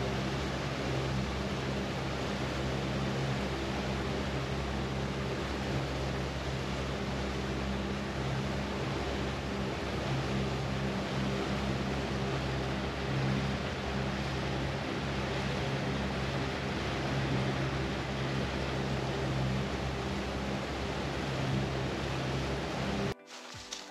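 Small aluminium boat's motor running steadily at cruising speed, a constant low drone under the hiss of wind and water rushing past; it cuts off abruptly near the end.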